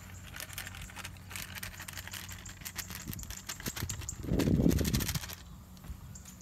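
Rapid dry clicking and rustling in a rice field, with a brief gust of wind buffeting the microphone a little past four seconds in.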